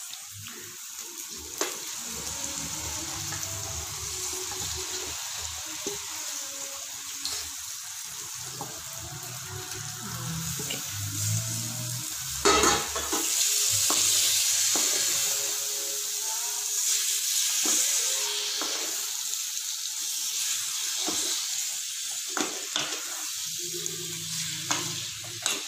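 Marinated chicken pieces sizzling as they fry in hot oil and masala in a non-stick kadai, stirred with a spatula, with scattered scraping clicks. The sizzle grows louder about halfway through, just after a sharp knock.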